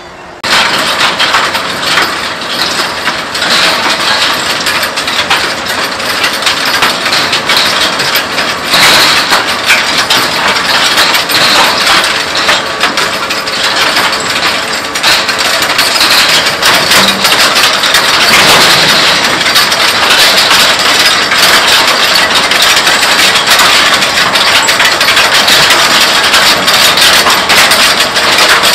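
Elho rock picker working through stony soil: a loud, dense, continuous clatter of stones rattling against its metal reel and bucket, over the running diesel engine of the Case IH Puma 165 CVT tractor pulling it. The clatter sets in abruptly just after the start.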